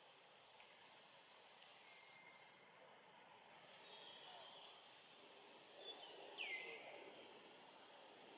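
Faint background ambience with sparse bird calls: short high chirps scattered through, and one clearer downward-sweeping whistle about six and a half seconds in.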